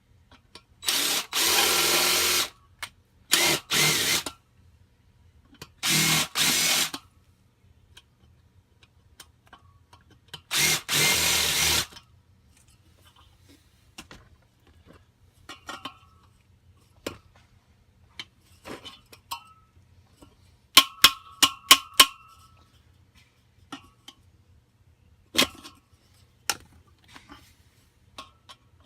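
Power drill running in four short bursts while the bearing is worked out of a bus A/C blower assembly. Scattered light clicks follow, then a quick run of sharp metallic taps with a ringing tone and one more strike.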